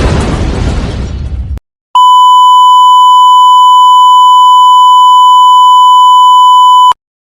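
A loud, noisy explosion-like sound effect dies away in the first second and a half. After a short gap, a steady, loud 1 kHz censor-style beep tone holds for about five seconds and then cuts off abruptly.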